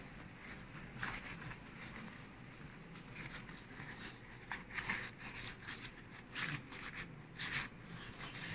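Nylon straps and MOLLE webbing rustling and scraping in short, irregular bursts as a pouch strap is pulled and threaded through a backpack's webbing loops.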